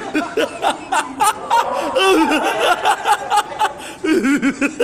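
Several people laughing hard in rapid, choppy bursts of chuckling, with excited voices mixed in.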